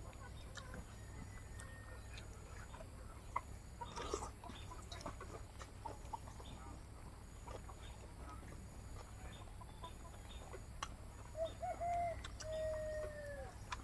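Quiet eating by hand, rice and curry off a banana leaf: small wet clicks and smacks, with a louder crackle about four seconds in. Near the end a hen calls, a few short clucks and then one longer falling note.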